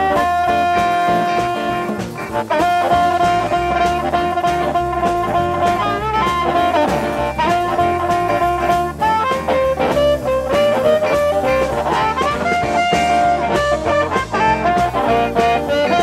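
Live blues band playing: an amplified harmonica solos with long held and bending notes over electric guitar and drums.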